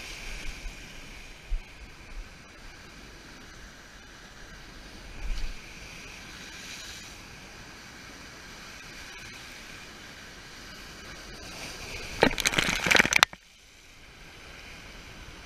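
Surf breaking and washing over lava rocks as a steady rush. About twelve seconds in comes a loud, crackling surge of about a second that cuts off suddenly.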